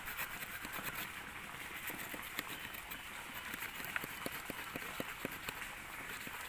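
The small folding wood saw of a Victorinox Huntsman Swiss Army knife cutting back and forth through a thick green jamun branch: a steady rasp of repeated saw strokes with small sharp clicks.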